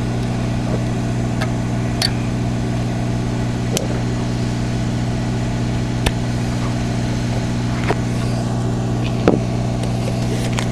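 A steady low electrical hum with evenly spaced overtones, and a few sharp faint clicks from small pliers bending the metal contact tab of a CB radio's speaker jack.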